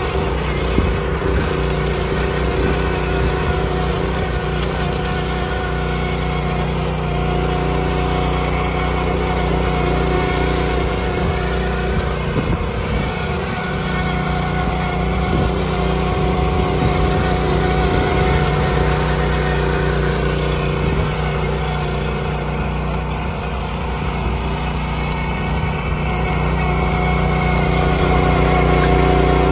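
Walk-behind rotary tiller's small single-cylinder air-cooled engine running steadily under load as its tines churn through dry soil.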